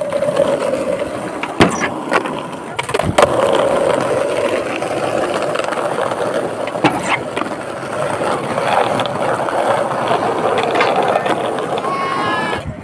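Skateboard wheels rolling steadily over rough, worn pavement, a continuous rolling noise with a couple of sharp clacks from the board about a second and a half and three seconds in.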